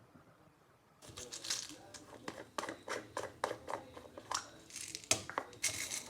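Handling noise: a quick run of small sharp clicks mixed with crinkling rustles, starting about a second in after a near-quiet start.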